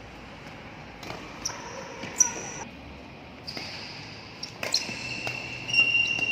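A ball striking a hard court floor in a few sharp knocks, the loudest about two seconds in, with high squeaking tones in the hall, the longest starting near the end.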